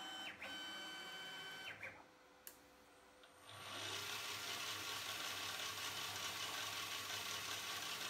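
CNC-converted Emco Maximat lathe running a threading-cycle program. The Z-axis stepper motor whines through two short carriage moves, its pitch ramping up and down at each start and stop. After a brief quiet pause about two seconds in, the lathe's three-phase spindle drive motor spins up with a rising tone and then runs steadily with a low hum.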